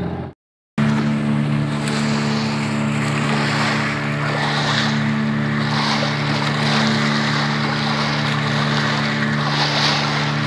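Fishing boat's engine running steadily at cruising speed, with water rushing and splashing along the hull. The sound cuts out briefly just under a second in, then resumes.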